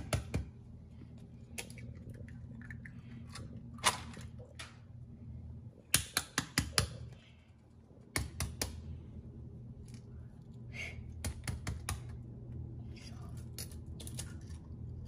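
Eggs being cracked by hand over a bowl of brownie mix: scattered sharp taps and clicks of eggshell knocking on the bowl's rim and breaking, with a quick cluster of taps about six seconds in and another about eight seconds in. A low steady hum lies underneath.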